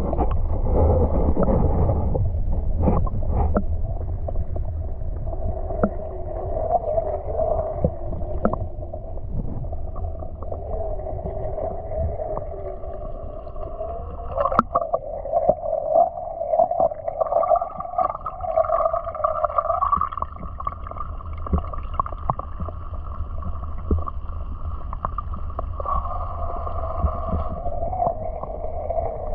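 Water swirling down a whirlpool vortex in a shallow marsh, heard underwater: a steady low rumble with a wavering hum that fades and comes back, and scattered small clicks.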